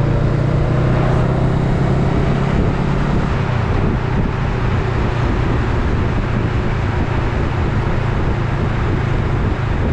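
Honda Rebel 500's parallel-twin engine running at a steady pace while riding, half buried under heavy wind noise on the microphone.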